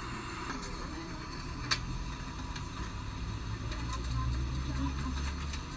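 Low rumble of a bus engine and road noise heard from inside the moving vehicle, with scattered light clicks and rattles and one sharper click a little under two seconds in. The rumble grows louder a little after halfway.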